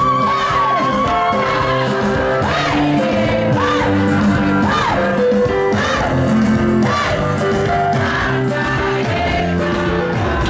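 Loud music with singing, the voice gliding up and down over held instrumental notes.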